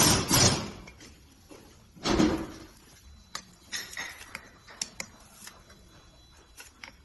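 Metal pump parts and tools being handled during reassembly of a metal diaphragm pump: two loud scraping, clattering bursts, at the start and about two seconds in, then a scatter of light metallic clicks and clinks.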